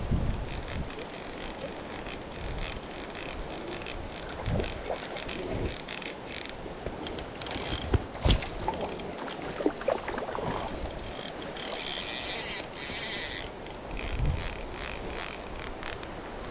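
Fly reel's click-and-pawl drag ratcheting in several short, uneven runs of clicks, with a denser run a little past the middle.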